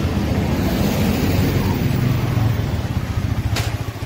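Yamaha MT-15's single-cylinder 155 cc engine idling through its stock exhaust, a steady fast low thudding beat. A sharp click sounds about three and a half seconds in.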